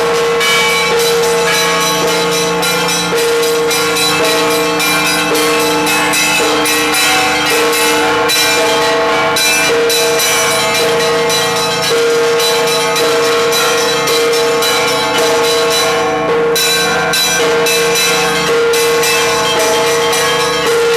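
Russian Orthodox church bells rung in the zvon style: a dense, rapid, continuous pattern of small high bells struck by their clappers over a mid-pitched bell that sounds again and again, about once a second.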